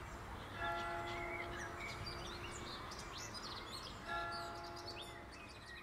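Outdoor ambience: birds chirping over a steady low rumble. A held tone of several pitches sounds twice, starting about half a second in and again about four seconds in.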